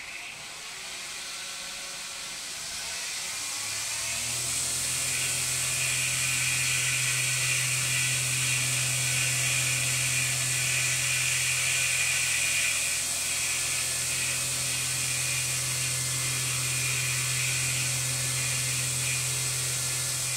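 Belt grinder switched on and running up to speed over about four seconds, then running steadily with a low motor hum and the high whir of the belt, with no work on it.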